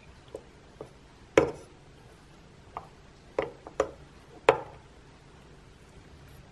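Metal spoon knocking against a plastic rice-cube mold as sushi rice is spooned in and pushed off into it: about seven short, sharp clicks at uneven intervals.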